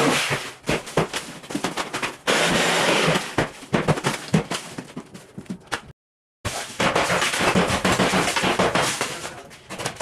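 Interior wall being demolished: repeated sharp knocks and blows with breaking and crumbling of wall material, in irregular clusters, with a brief dropout about six seconds in.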